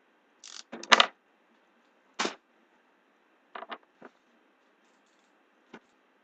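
Cardboard shipping case being opened by hand: a few short scrapes and rustles of the taped flaps, the loudest about a second in, then smaller ones spaced out over the next few seconds.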